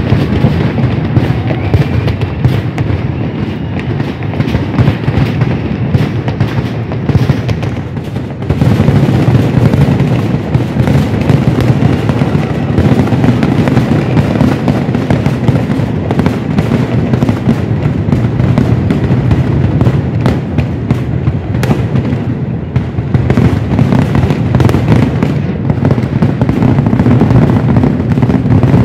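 Fireworks display: a dense, unbroken barrage of rapid, overlapping bangs and crackles from firecrackers and aerial shells, growing louder about eight seconds in.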